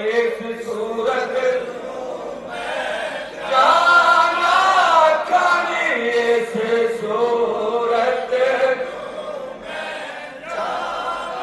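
A man chanting a devotional verse in long, wavering held notes.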